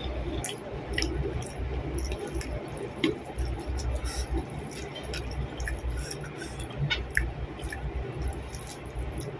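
Close-miked eating sounds: chewing and lip smacking on rice and fried eggplant, with small wet clicks and squishes as fingers scoop and mix rice with sambal.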